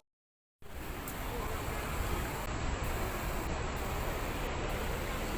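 A brief silence at the start, then steady outdoor background noise with no clear pitch or rhythm.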